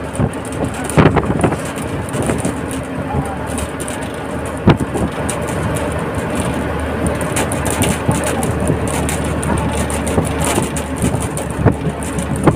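NBSTC bus heard from inside while running at speed: steady engine hum and road noise with wind at the open window, over frequent rattles and knocks from the bus body, one sharper knock about five seconds in.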